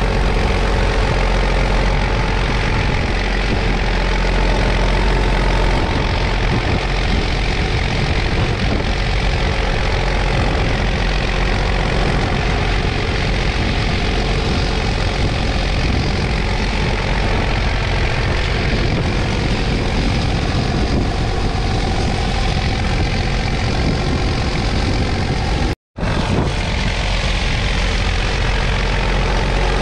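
2008 New Holland T6070's 6.7-litre six-cylinder diesel engine running steadily while working a McConnel PowerArm hedge cutter. The sound cuts out completely for an instant near the end.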